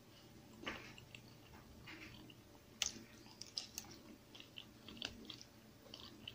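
A person eating macaroni salad with a spoon: quiet chewing with scattered short clicks, the sharpest about three seconds in.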